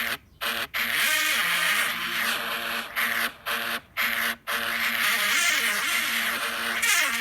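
Stadium vuvuzela sound effect played as a tune from a phone app: a buzzing horn tone, with a few short blasts at first and then longer notes whose pitch steps and slides up and down.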